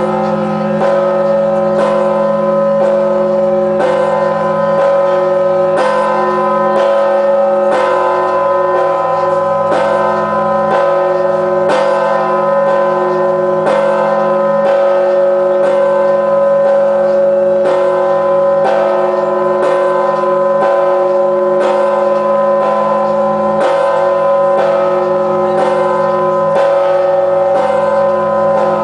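Large 7150 kg Orthodox church bell struck steadily by its clapper, about once a second (around 58 strikes a minute). Each stroke rings on into the hum of the strokes before it.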